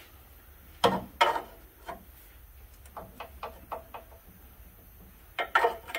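Metal clanks and knocks as a steel lower control arm mounting bracket is shifted into place against the vehicle's frame. The two sharpest strikes come about a second in, a quick run of light ticks and taps follows around the middle, and a couple more knocks come near the end.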